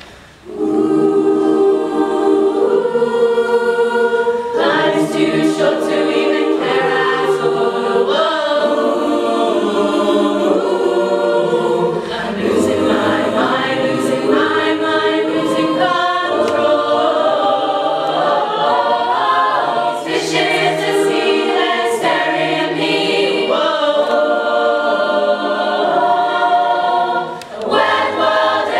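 Group of voices singing a song in layered close harmony, entering about half a second in and carrying on loudly, with a brief dip near the end.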